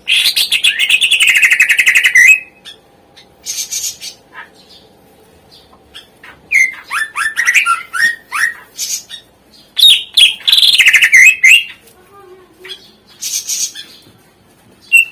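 Cucak ijo (greater green leafbird) singing. A loud, rapid trill falls in pitch over about two seconds at the start and comes again about ten seconds in, with quick falling chirps and short phrases between.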